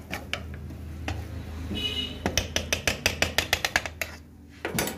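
A spoon beating eggs in a bowl, clinking against the side: a few single taps, then a quick run of about eight taps a second in the middle, and one more clink near the end, over a steady low hum.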